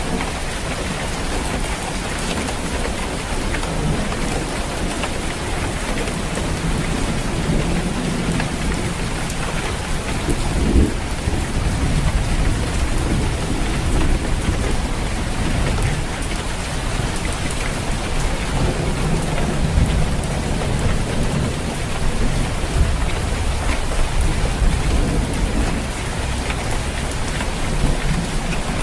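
Steady rain falling on a roof, with low rolls of thunder swelling and fading underneath and a sharper crack about eleven seconds in.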